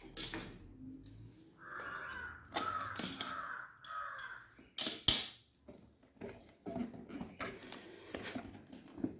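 A laptop's cardboard shipping box being handled and opened, with clicks and rustles and one sharp, loud snap about five seconds in. A bird caws three times in a row about two to four seconds in.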